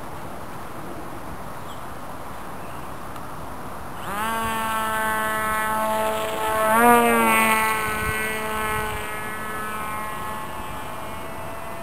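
Electric motor and propeller of a small radio-controlled Mini Pop flying wing, starting up about four seconds in as it is hand-launched and running at a steady whine. It is loudest about seven seconds in, with a brief wobble in pitch as it passes close, then fades as it flies away.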